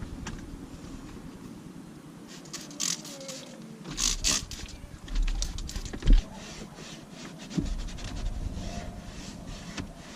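Close handling noises from cleaning the plastic console around the cup holders and gear shifter: scattered scrapes and small clicks, a few brief brighter rubbing bursts, and a single knock about six seconds in.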